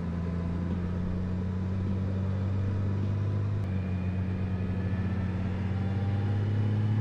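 Touring motorcycle engine running steadily under way, its note slowly rising in pitch and growing louder as the bike picks up speed.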